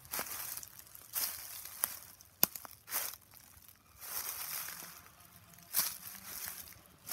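Footsteps in boots crunching through dry leaf litter on a woodland floor, about one step a second, with a couple of sharp snaps.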